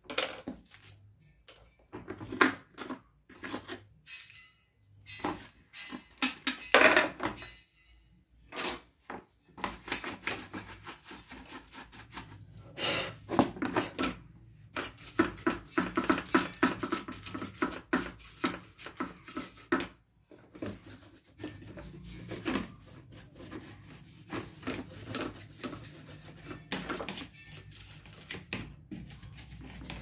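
Plastic casing halves of a dismantled kitchen weighing scale being handled on a wooden workbench: irregular knocks and clicks, with a busier stretch of rubbing and scraping in the middle.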